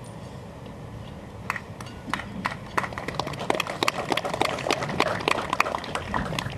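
Small audience applauding, with individual claps clearly separate. The clapping starts about a second and a half in, thickens, then thins out near the end.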